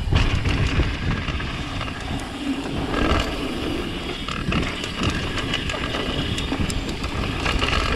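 Mountain bike riding noise: wind rumbling on the camera's microphone, tyres rolling over packed dirt, and frequent clicks and rattles from the bike over bumps and jumps.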